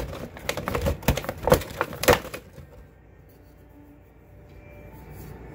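Statue wing piece clicking and knocking against the figure as it is fitted on: a quick run of sharp clicks over the first two seconds or so, the loudest two about one and a half and two seconds in.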